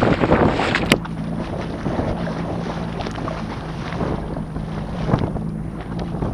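Yamaha 25 hp outboard motor running steadily at speed, with water spray and wash against the inflatable boat's hull and wind buffeting the microphone. About a second in there is a sharp click, after which the wind and spray noise drops and the engine's steady hum is clearer.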